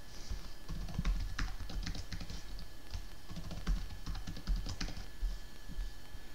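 Typing on a computer keyboard: short runs of quick, irregular key clicks.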